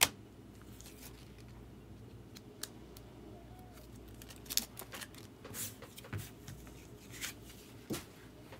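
Trading cards and plastic card sleeves being handled on a table. A sharp click at the start, then scattered short rustles and clicks, over a low steady room hum.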